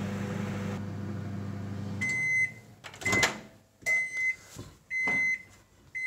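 Bifinett microwave oven running with a steady low hum that stops about two seconds in. It then gives a series of high single-tone beeps about once a second, with clunks as the door is opened.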